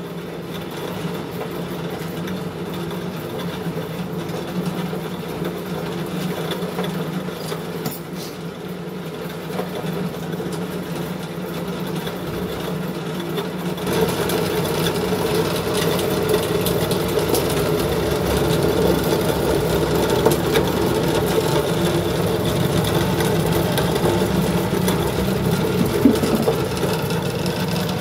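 Small animal-feed pellet mill running under load, a steady motor hum and mechanical rattle as it presses mixed pig feed into pellets. It grows louder and rougher about halfway through.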